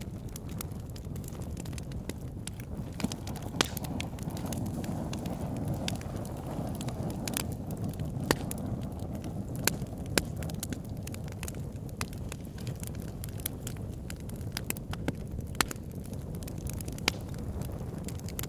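Campfire burning: a steady low rumble of flames with irregular sharp crackles and pops throughout, and a few louder snaps.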